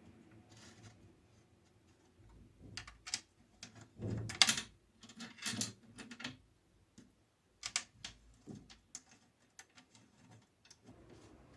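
Irregular clicks and clatter of small hard parts being handled, loudest in a cluster of knocks from about four to six and a half seconds in.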